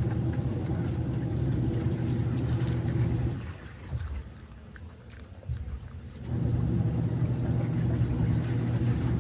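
A small motor running steadily in two stretches of about three and a half seconds each, with a pause of about three seconds between them.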